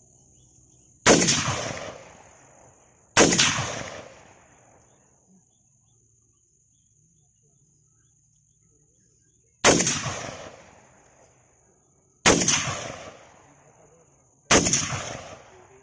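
Five single gunshots fired one at a time at uneven intervals, each followed by an echo that dies away over a second or so.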